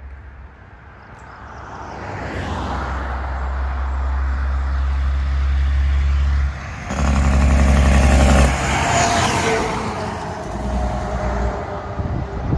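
Diesel tri-axle dump truck approaching, driving past close by and pulling away. Its engine sound builds steadily, drops out briefly about halfway through, then comes back at its loudest as the truck goes by before fading.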